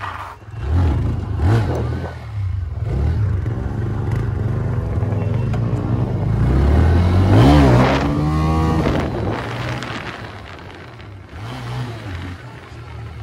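Motorcycle engine running under the rider, with wind and road noise, as the bike rolls along and slows. About seven seconds in the engine note rises and falls in a short rev, the loudest part, then it settles back.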